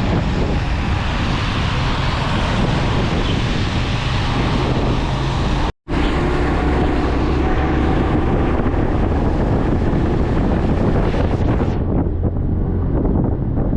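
Motorcycle on the move, engine and road noise under heavy wind buffeting on the microphone. The sound cuts out for an instant about six seconds in, and turns duller near the end.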